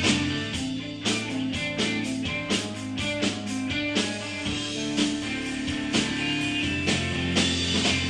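Rock band playing live: electric guitars and bass holding sustained notes over a steady drum beat.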